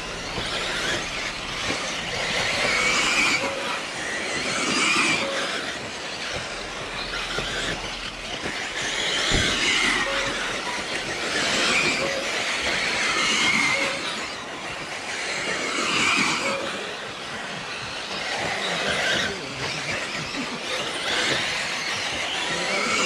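Electric radio-controlled racing cars running laps, their motors whining and tyres scrabbling as they accelerate and brake. The sound swells and fades every few seconds as the cars pass.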